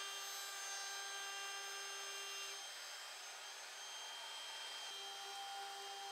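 DeWalt cordless compact router with a roundover bit running at speed, a steady high whine, rounding over pine. The whine changes about halfway through, and a steady whine comes back near the end.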